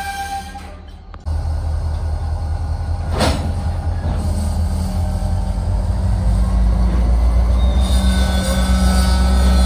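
Union Pacific freight cars rolling slowly past at close range: a low, steadily building rumble of steel wheels on rail, one sharp knock about three seconds in, and thin wheel squeals near the end.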